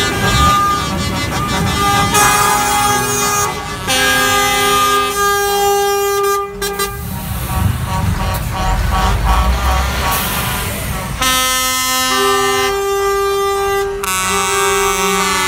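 Lorry air horns sounding a series of long blasts, several notes at once, as trucks drive past. Between the blasts, about eight to ten seconds in, the low rumble of a truck's diesel engine passing close.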